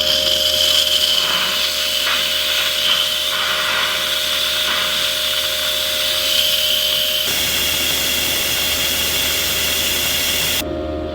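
Instant Pot pressure cooker venting steam through its release valve in a steady, loud hiss that cuts off abruptly near the end.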